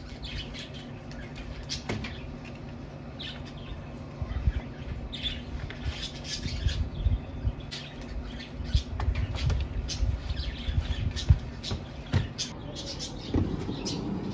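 Plastic laundry baskets being handled and set into a car's rear cargo area: scattered knocks and rustling over a steady low outdoor rumble.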